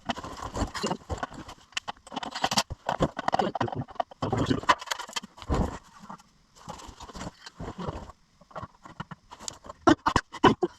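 Irregular clinks, knocks and short scrapes of hand tools and metal parts during work fitting a new transmission oil pan.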